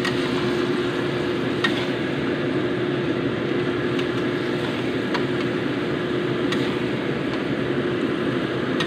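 Eggs simmering in sweet soy sauce in a wok: a steady hiss with a low hum under it, while a spatula scrapes and clicks against the wok a few times.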